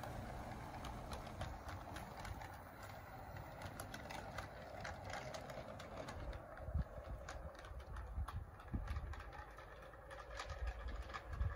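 A battery-electric 16mm-scale garden railway locomotive and its coaches running along the track, with faint, irregular clicking of the wheels on the rails. A few low thumps come in near the middle and the end.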